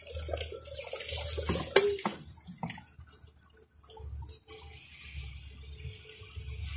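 Water poured from a plastic pitcher over a wet puppy, splashing loudly for about two seconds, then a quieter trickle and drips for the rest.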